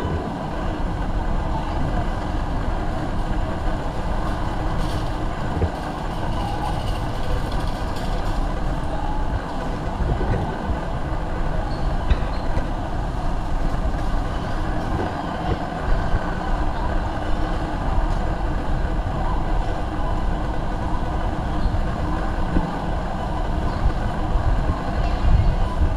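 Busy warehouse store ambience: a steady low rumble with the indistinct murmur of shoppers' voices and a few faint knocks.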